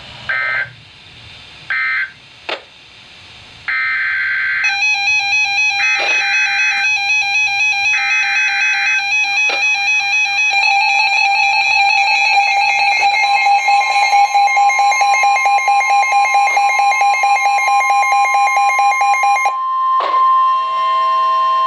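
Emergency Alert System tones: short screechy bursts of digital alert data twice, then a harsh continuous alert tone with three more data bursts over it. The tone cuts off suddenly about 19 seconds in, and a single steady high tone starts right after.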